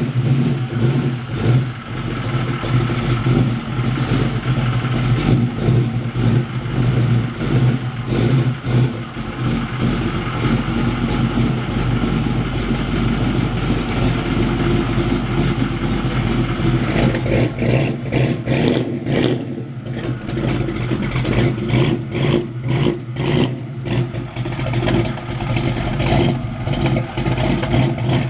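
Engine of a custom 1969 Chevrolet Camaro running at low speed as the car is maneuvered onto a car-hauler trailer: a steady low note that turns choppier and uneven in the last third.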